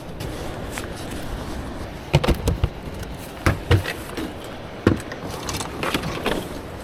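Several sharp knocks and thumps, a cluster about two seconds in, two more about a second later and one near five seconds, over a steady rushing background noise.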